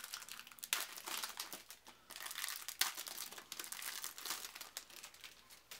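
Cellophane wrapping being torn and crinkled off a stack of oversized trading cards: an irregular run of crackling crinkles.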